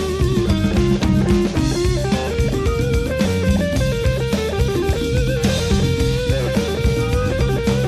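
Rock music with electric guitar melody over bass and a drum kit beat.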